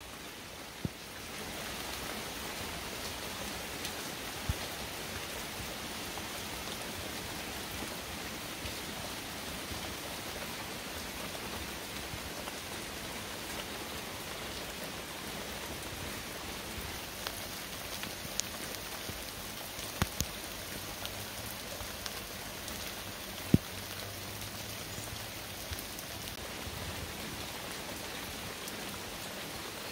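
Steady autumn rain falling, with a few sharp taps scattered through it, the loudest a little past two-thirds of the way through.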